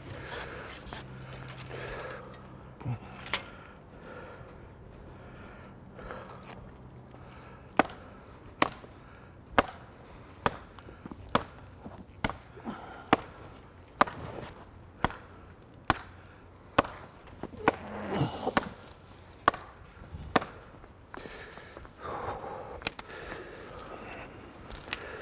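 A hand tool chopping into a tree's branches: about fifteen sharp blows, a little over one a second, starting about a third of the way in and stopping well before the end. Leaves and twigs rustle partway through the chopping. A low steady hum runs under the first part.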